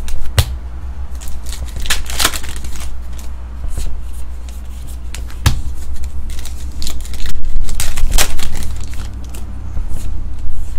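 Stack of Star Trek trading cards flipped through by hand: cards sliding and snapping against one another in quick, irregular clicks and rustles, busiest about seven to eight seconds in, over a steady low hum.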